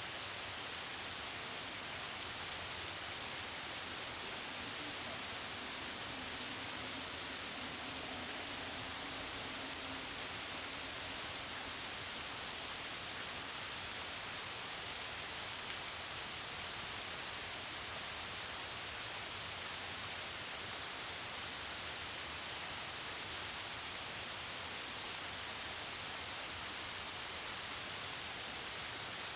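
Mountain waterfall rushing down rocks: an even, steady hiss of falling water.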